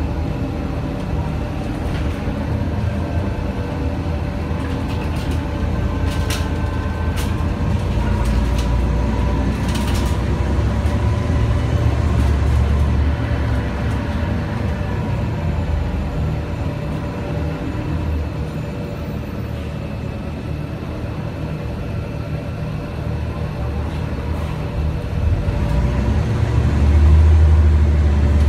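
Mercedes-Benz O 405 NH bus heard from inside the cabin while driving: its Mercedes M 447 hG CNG engine and ZF Ecomat automatic gearbox give a steady drone with a faint whine, with a few rattling clicks. Near the end the engine gets louder as the bus accelerates.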